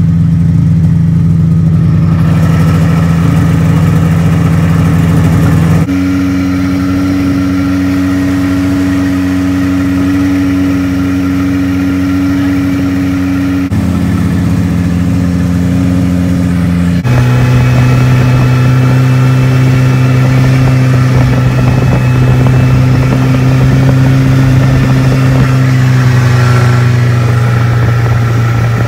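Snowmobile engines running steadily at cruising speed. The steady engine note jumps to a new pitch abruptly three times, about six, fourteen and seventeen seconds in.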